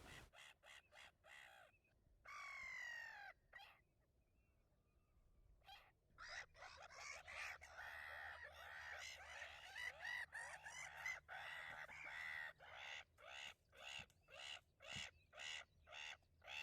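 Gulls calling faintly: one longer cry about two seconds in, a brief silence, then a rapid run of short, harsh repeated calls, about one or two a second.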